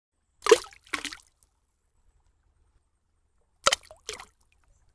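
Cartoon splash sound effects of an egg dropping into a bucket of paint: a pair of quick wet splashes about half a second in, and another pair near the end.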